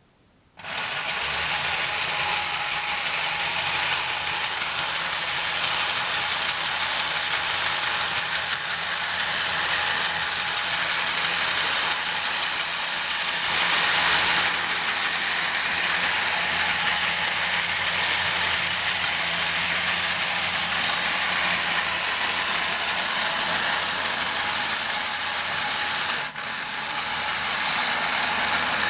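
Tin toy's mechanism running steadily, its gears whirring and rattling over a low hum. It starts about half a second in and drops briefly near the end.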